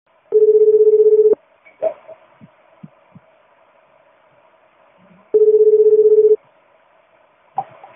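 Telephone ringback tone heard down the line while a call rings out: a low, slightly warbling tone sounding twice, about a second each, roughly four seconds of pause between, over faint line hiss with a few soft clicks.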